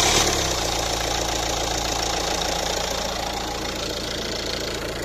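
Renault car engine catching after cranking and settling into a steady idle, running again after its camshaft position sensor was replaced.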